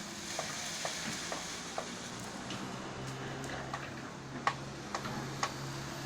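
Komatsu excavator's diesel engine running steadily, its note firming from about halfway, with a scattering of sharp cracks and snaps, the loudest three quarters of the way in.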